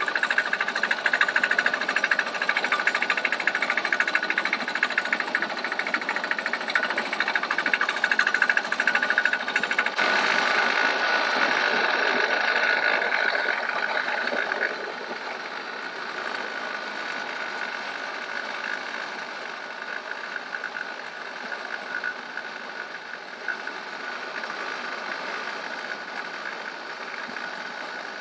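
Small engine of a powered monorail car running with a fast, even knocking beat as the car travels along the rail. The sound changes about ten seconds in and gets quieter about fifteen seconds in.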